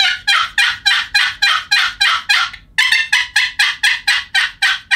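Wooden turkey box call, The Grind's 'Wet Hen', worked by hand to make a long run of quick, raspy hen yelps, about four a second, with a short break about three seconds in.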